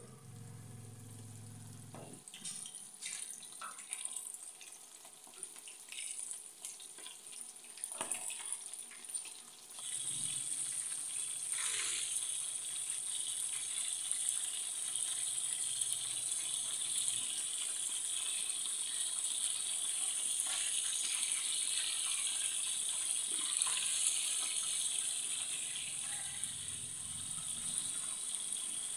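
Coated chicken pieces deep-frying in hot oil: a steady, high sizzle that grows louder about ten seconds in, with a few light knocks in the first half.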